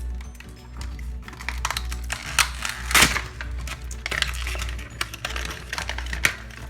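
Background music under small clicks and rustles of a toy's plastic packaging being handled and opened, with a louder snap about three seconds in.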